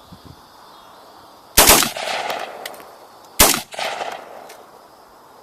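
Bushmaster AR-15 in .223 with a Slide Fire bump-fire stock, firing steel-case Tula ammunition. A short burst comes about a second and a half in, then a single shot about two seconds later, each followed by a rolling echo. The shots come in fits rather than a continuous stream, as the bump-fire stock is having trouble cycling with this ammunition.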